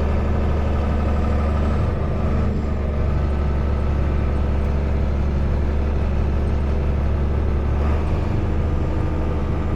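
Heavy engine running steadily, a deep hum with layered steady tones above it, shifting slightly about two seconds in and again near the end.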